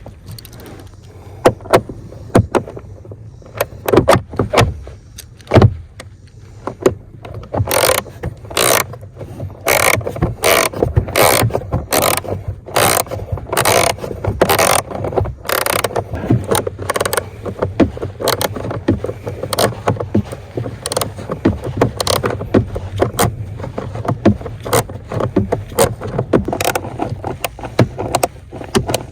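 Clicks and knocks of hand tools and parts being worked on the truck, with a run of sharp, evenly spaced clicks from about 8 to 17 seconds in, over a low steady hum.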